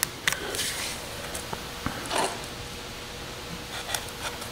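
Quiet handling sounds: a few light clicks and soft rustles as a cardboard template is pressed and shifted against a skid plate to check its fit.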